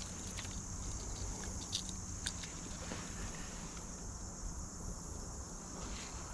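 Outdoor ambience: a steady high insect drone over a low, even rumble, with a few faint clicks.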